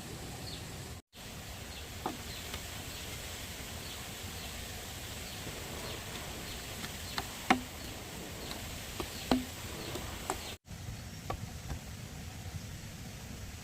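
Steady outdoor background hiss with a few scattered sharp knocks, the two loudest about seven and a half and nine seconds in. The sound cuts out briefly twice.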